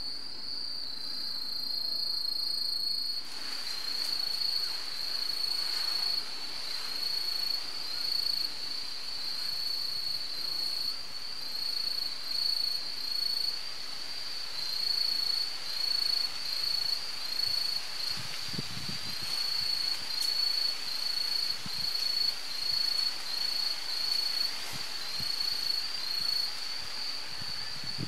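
Insects chirring in a steady, high-pitched trill. A second, higher insect call joins about three seconds in, pulsing in short repeated phrases.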